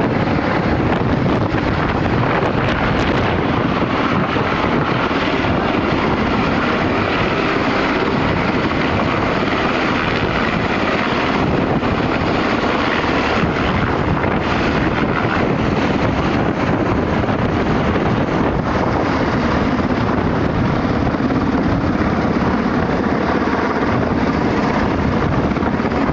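Black Hawk helicopter flying low overhead just after takeoff, its rotors and twin turbine engines making a loud, steady noise, with rotor downwash buffeting the microphone.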